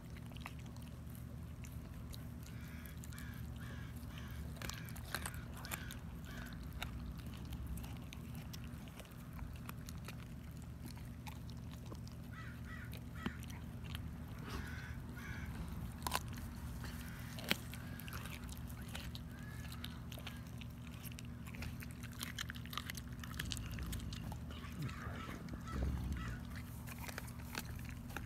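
German Shepherd licking and gnawing a raw chicken leg quarter, with wet mouth sounds and scattered sharp clicks of teeth on meat and bone. It bites down harder about two seconds before the end.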